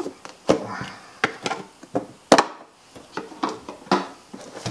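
Hands handling the white cardboard box and insert tray of an iPad package: a string of short, sharp knocks and taps, the loudest a little past halfway through.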